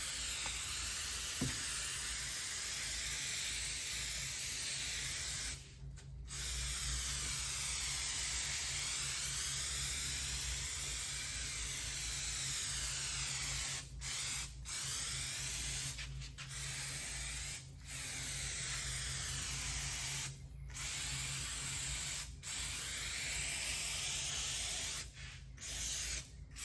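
Spray adhesive hissing steadily from a nozzle, broken by about nine brief pauses where the spraying stops for a moment.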